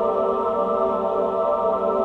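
Ambient background music of steady, sustained tones.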